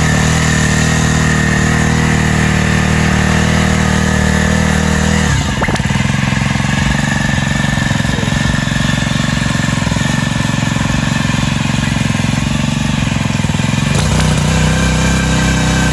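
Kubota TMS200 mini cultivator's engine running steadily as its tines work the soil. The engine note drops about five seconds in as the throttle is eased off to slow the tiller, and changes again near the end.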